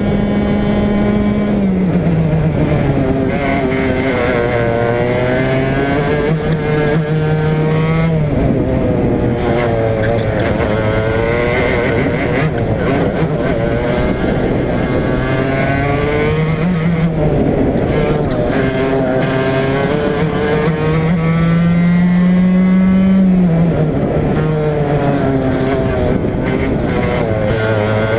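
Racing go-kart engine heard from on board, its note climbing as it revs up and falling back as it eases off, over and over through a lap. The highest and loudest revs come a little past the two-thirds point.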